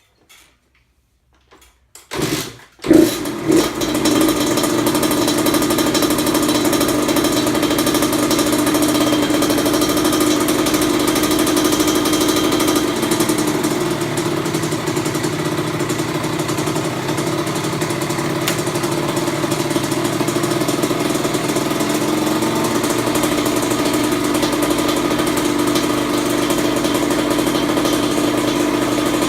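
Kawasaki KX100 two-stroke single-cylinder motocross engine firing up about three seconds in, on its first start after a full rebuild, then running steadily.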